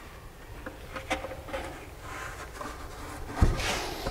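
A half-inch MDF subwoofer box is handled and rolled over onto glue-tacked speaker carpet. There are light knocks and rubbing, then one heavy thump about three and a half seconds in as the box comes down on its side. Carpet rustles and rubs against the wood after that.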